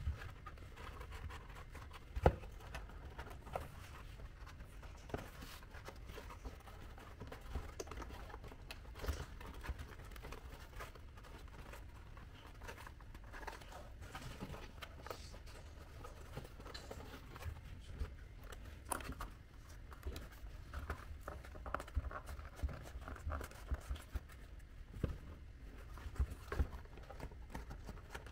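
Cardboard pieces being handled and worked: irregular small taps, rustles and scrapes, with one sharper knock about two seconds in.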